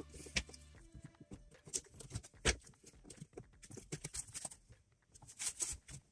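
Irregular light clicks and taps of thin wooden planking strips being handled and pressed against a wooden model ship hull, with a brief lull near the end.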